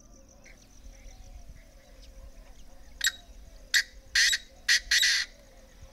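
Painted francolin calling: five harsh notes beginning about three seconds in, the third and last drawn out longer, over a faint steady high hum.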